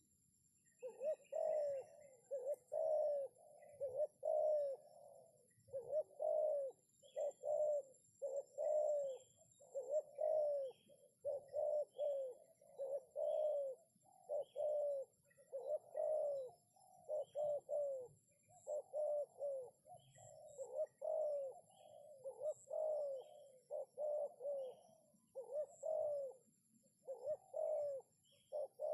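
Spotted dove (terkukur) cooing, a long unbroken series of short low coo notes repeated about once a second, starting about a second in.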